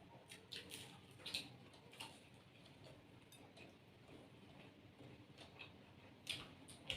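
Faint, sharp clicks and crunches of mouths chewing crisp khasta kachori. A cluster comes in the first two seconds and two more near the end.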